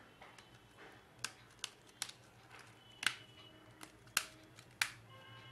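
Plastic back cover of a smartphone being pressed and snapped onto the handset: a series of sharp separate clicks, about six in all, the loudest about three and four seconds in.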